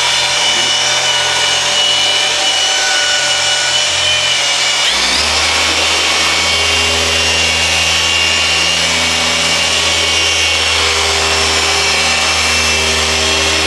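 Handheld electric car polishers running against painted bodywork: a steady motor whine over a low hum, cutting swirl marks out of black paint with a cutting pad and compound. About five seconds in the sound changes and a deeper, steady hum takes over.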